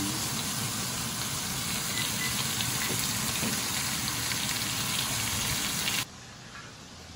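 Wagyu steaks sizzling steadily in a hot 12-inch cast iron skillet, searing in their fat. The sizzle cuts off suddenly about six seconds in, leaving quiet room sound.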